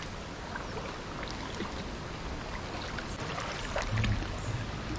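Water sloshing and swishing as people wade through a flooded paddy field, a steady watery rush with scattered small splashes.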